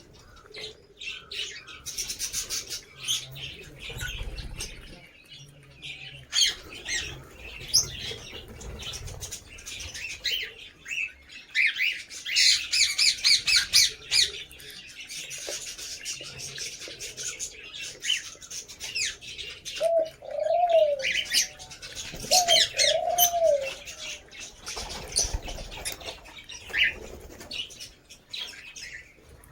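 Lovebirds chirping and chattering in short, sharp calls, with a dense run of rapid chirps midway. Four low cooing notes come in about two-thirds of the way through.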